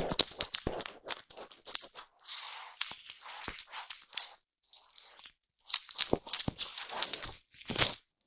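A brush stroking and scratching a microphone's foam cover up close: crackly scratches full of small clicks, a smoother stretch of brushing partway through, a short pause, then more crackly strokes.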